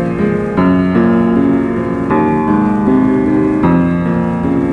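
Piano patch of the Sound Arsenal sampled virtual instrument being played: a series of sustained chords, changing every second or so.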